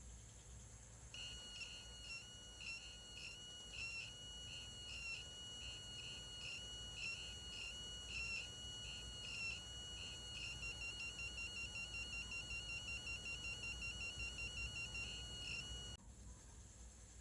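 Piezo buzzer in a blinking LED circuit sounding a high, steady electronic tone that breaks off briefly about twice a second. About ten seconds in it switches to a fast pulsing beep several times a second, then stops abruptly near the end.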